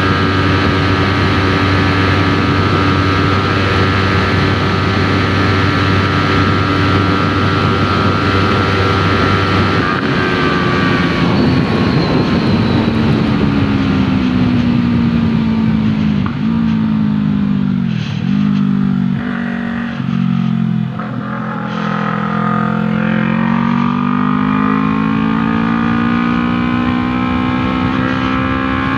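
Yamaha R3's 321 cc parallel-twin engine through an Arashi aftermarket exhaust, heard on board. It holds a steady engine speed at first, then the pitch falls away with a few brief dips in the middle, sits low for a moment, and rises again as it accelerates near the end.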